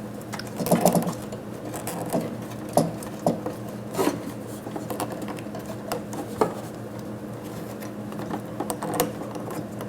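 Scattered clicks, knocks and light rattles of hands working parts loose inside a dental cassette sterilizer, over a steady low hum.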